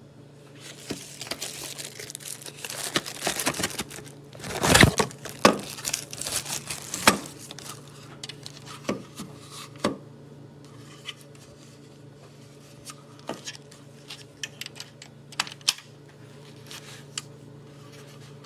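Hands handling packaging and a plastic travel plug adapter: crinkling and tearing over the first few seconds, a few louder knocks around five and seven seconds in, then scattered light clicks and taps.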